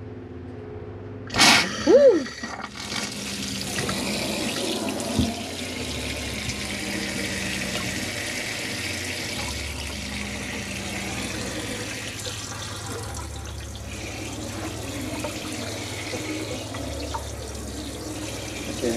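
Water spraying steadily from a pull-down faucet's sprayer head into a stainless steel sink, the first water through the newly installed faucet. About a second and a half in there is a short loud burst with a brief rising-and-falling squeal as the water comes on.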